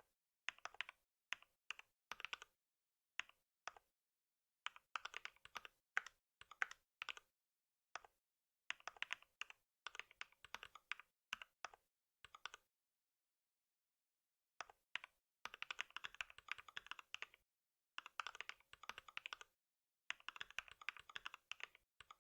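Typing on a computer keyboard: quick runs of key clicks broken by short pauses, with a longer pause about two-thirds of the way through.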